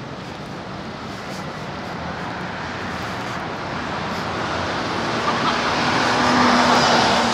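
A road vehicle passing close by in city traffic. Its noise swells steadily to a peak about six and a half seconds in, with a low engine tone at its loudest, then starts to fade.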